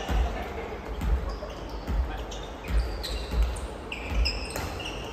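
Volleyballs being struck in passing drills: sharp thumps about once a second, ringing in a large gym hall. Sneakers give short high squeaks on the wooden floor.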